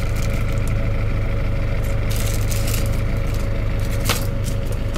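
Diesel engine of a GAZ Valdai truck idling steadily, heard from inside the cab as a constant low drone. Over it, a small plastic bag of spare fuses crinkles as it is handled, most noticeably about two to three seconds in and again about four seconds in.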